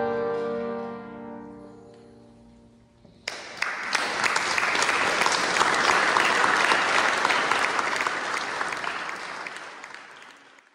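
The final chord of an accordion ensemble, held and then dying away in the church's reverberation. About three seconds in, audience applause breaks out and later fades out near the end.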